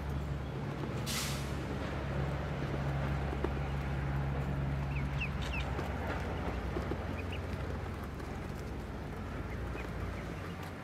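Yellow ducklings peeping in short, high chirps and tapping their bills on a feed plate as they peck at grain, over a steady low hum that thins out about halfway through. A short hiss sounds about a second in.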